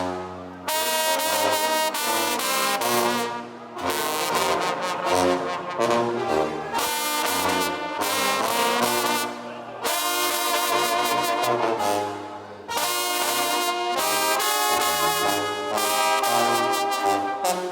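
A brass banda playing live: horns play melodic phrases that break off briefly every few seconds, over a low bass line.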